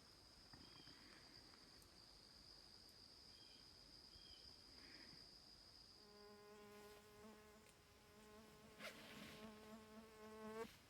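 Faint outdoor stillness with a steady high insect trill, then about halfway through a flying insect buzzing close by at a steady pitch, which cuts off suddenly near the end.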